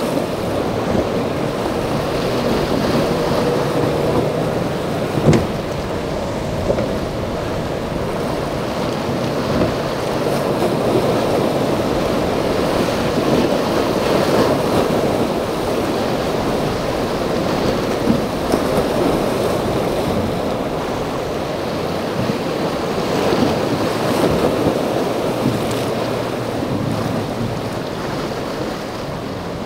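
Rough surf and breaking waves with wind buffeting the microphone, and the outboard motor of a center-console boat running through the chop. A single sharp knock about five seconds in.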